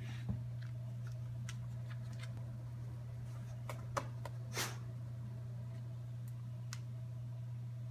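Steady low hum of reef aquarium equipment, with a few faint sharp clicks scattered through and a brief rustle about four and a half seconds in.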